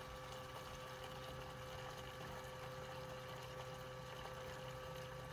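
Terapump TRFA01 battery-powered fuel transfer pump running steadily, a quiet even hum, with gasoline flowing through its hose into a lawnmower's fuel tank.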